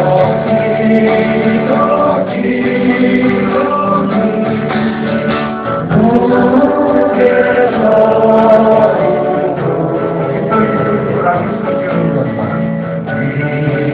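Several voices singing together in a live song, with sustained notes that slide up in pitch about six seconds in, over guitar accompaniment.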